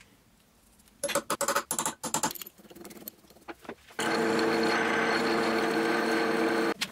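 Metal clinking and clattering for a few seconds. Then a milling machine's spindle runs steadily with a twist drill boring into a metal motor bracket, a loud, even machine whirr that cuts off suddenly near the end.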